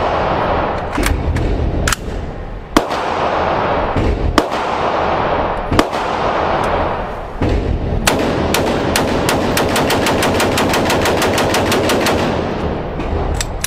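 Gunshots from an AR-style carbine on an indoor range: a handful of separate shots, then about two seconds past the middle a rapid string of about seven shots a second for some four seconds as the magazine is emptied, each shot echoing heavily off the range walls.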